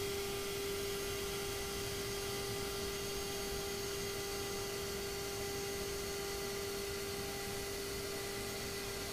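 Router motor of a fret-slot cutting rig running steadily, a constant whine over a steady hiss.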